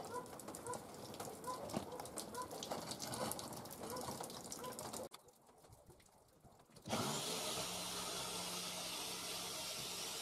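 Irregular clicks and rustling, a short quiet gap, then about seven seconds in an electric drill fitted in a homemade plywood router base starts. It runs steadily with a hum and hiss, its cutter milling a wooden board.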